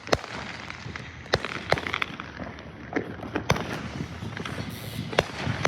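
Fireworks going off: about seven sharp, irregularly spaced bangs, with a burst of crackling around two seconds in.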